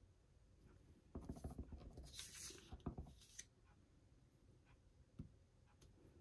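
Faint paper handling and stamping: a sheet of paper is slid and turned on the craft mat with a dry rustle, and a clear acrylic stamp block is pressed and knocked onto it, a sharper knock near three seconds in and a light tap about five seconds in.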